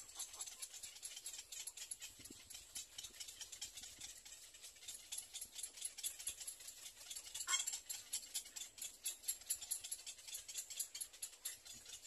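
Little egret chicks calling from the nest: a rapid run of high-pitched ticking calls, with one louder call about seven and a half seconds in.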